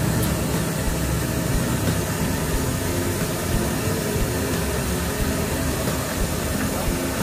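Steady road-traffic noise: a low engine hum under an even hiss.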